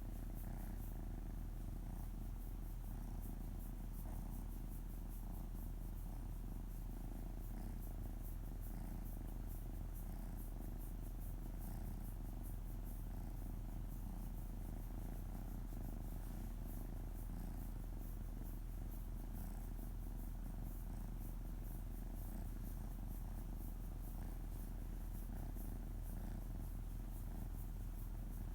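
An Ocicat purring steadily while its belly is gently stroked.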